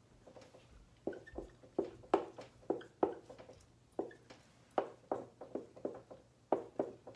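Dry-erase marker tapping and stroking on a whiteboard as electron dots and chlorine symbols are drawn: quick, irregular taps, several a second.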